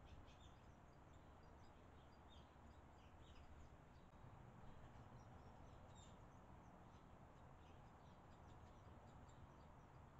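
Faint, scattered short high chirps of barn swallows at their mud nest, over a steady low hiss.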